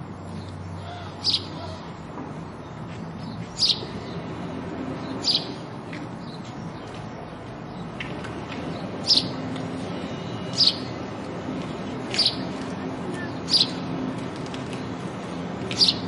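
House sparrow chirping: single short, sharp chirps, eight in all, one every one and a half to two seconds, over a steady low background hum.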